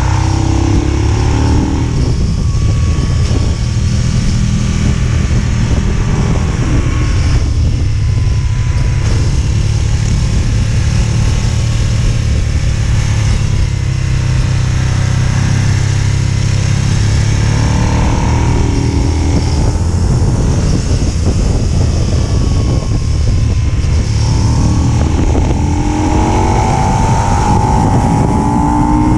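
Aprilia Tuono motorcycle engine running hard under a riding-speed wind rush, its revs climbing and dropping through the gears and bends, with a long rise in revs near the end.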